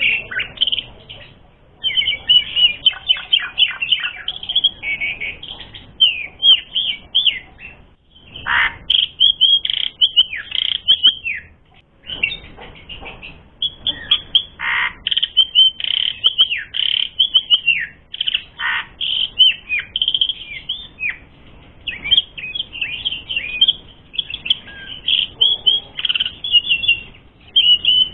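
Asian pied starling (jalak suren) singing a busy, chattering song: phrases of rapid whistled and sweeping notes, broken by short pauses about every few seconds.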